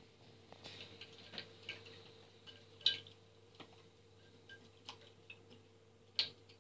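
A raccoon handling a ceramic bowl and a sponge in a stainless steel sink: irregular small clicks and taps of paws and bowl, the sharpest about three seconds in and again near the end, over a steady low hum.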